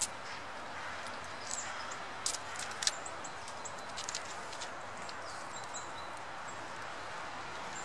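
Sharp clicks and scrabbling in the first three seconds as a red squirrel takes sunflower seeds from an open hand and scrambles off on the pine bark. Under them is a steady outdoor hiss, with thin, short, high calls of small birds now and then.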